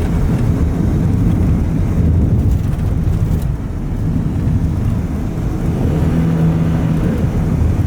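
Steady road and engine noise inside a moving car, a low rumbling hum, with the engine tone coming through more strongly about six seconds in.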